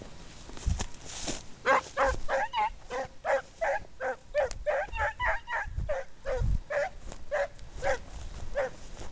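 Scent hound baying in a fast run of repeated barks, some drawn out and wavering in pitch: a hound giving tongue while working a hare's trail. A few low thumps sound underneath.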